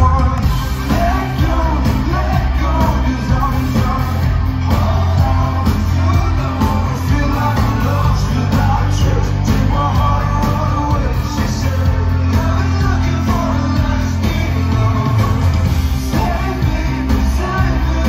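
A live band playing loud pop-rock, with electric guitars and singing, recorded from the crowd.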